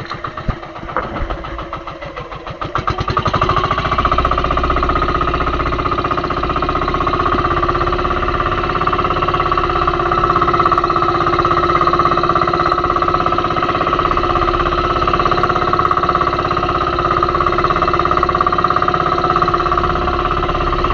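Boat engine idling with distinct, evenly spaced firing pulses, then throttled up about three seconds in and running steadily and louder at speed.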